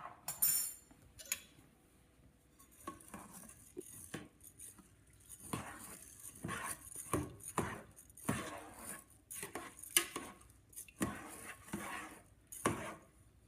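A large spoon stirring rice, water and salt in a rice cooker pot, clinking and scraping against the pot in a run of irregular short strokes.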